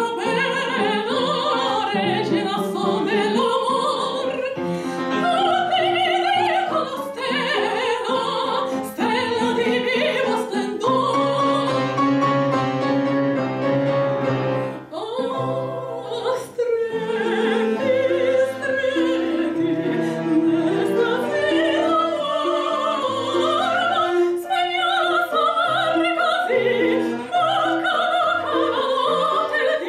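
A soprano sings a Spanish bolero in operatic style, accompanied by grand piano and cello.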